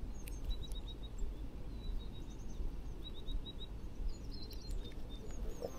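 Small songbirds calling: runs of four or five short, thin, high chirps, repeated several times. They sound over a low, steady rumble.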